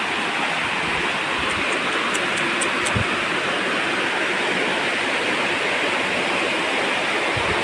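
Small waterfall pouring down a rock face into a shallow rocky pool: a steady rush of falling and splashing water.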